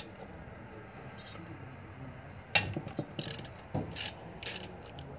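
Ratchet wrench clicking in a few short runs as it backs bolts out of a mower engine, starting about halfway through after a quiet first half.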